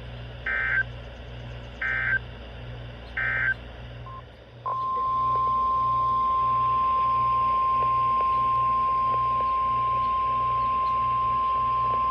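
Three short bursts of warbling EAS/SAME data, the end-of-message code of a weather radio alert. They are followed, from about four and a half seconds in, by the NOAA Weather Radio 1050 Hz warning alarm tone, a single loud steady pitch.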